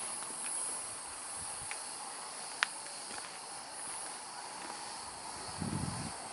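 Steady high insect chirring, with one sharp click about two and a half seconds in and a few footsteps on a dirt path near the end.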